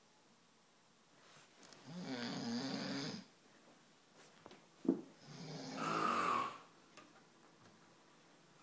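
A man snoring heavily in his sleep: two long, loud buzzing snores, each about a second and a half, with quiet breathing gaps and a short sharp sound between them.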